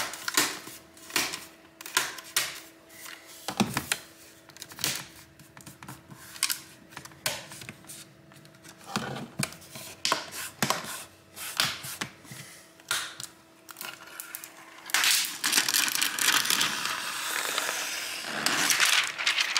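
Plastic screen bezel of an HP ProBook 450 G8 being pinched onto the lid, its clips snapping into place in a string of irregular sharp clicks. From about fifteen seconds in, the protective film is peeled off the new screen panel, a continuous ripping hiss.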